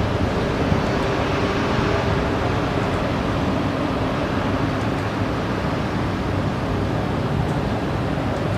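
Steady rushing storm noise with a faint low hum underneath and no sharp crack or sudden burst.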